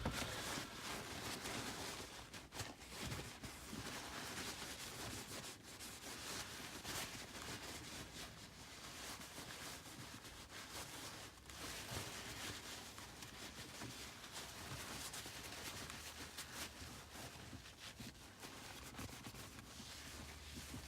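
A paper towel with rubbing alcohol being rubbed over a manual gear shift knob: a continuous, irregular scrubbing. A single sharp knock right at the start.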